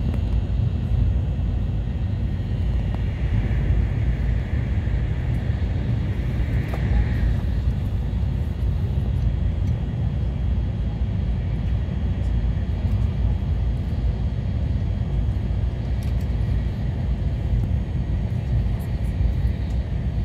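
Steady low rumble of a Shinkansen bullet train running at speed, heard inside the passenger cabin, with a faint high hiss and a few light clicks.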